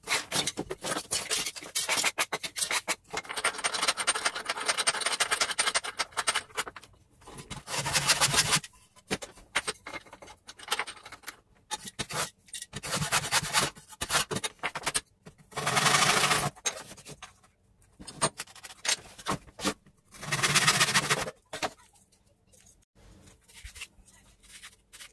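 Metal bench hand plane shaving a thin wooden strip: a quick run of short strokes for the first several seconds, then single longer strokes of about a second each, loudest about eight, sixteen and twenty-one seconds in, with light clicks and knocks between strokes.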